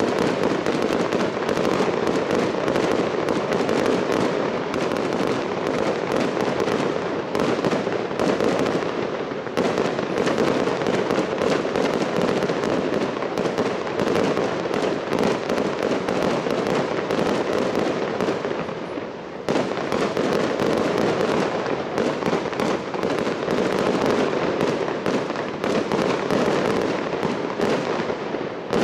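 Fireworks display going off continuously: dense, rapid crackling and popping from fountains and bursting shells, with a short dip in loudness about two-thirds of the way through.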